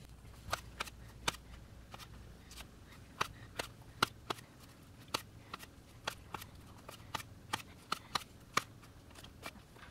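Knife cutting cherry tomatoes on a plastic plate: the blade taps the plate in sharp, irregular clicks, about two or three a second.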